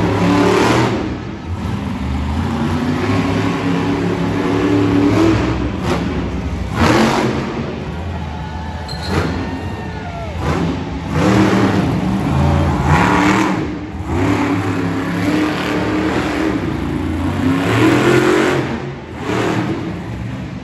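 Monster truck engine revving hard in repeated surges, its pitch rising and falling as the truck is thrown around the dirt floor and pulled up onto its rear wheels.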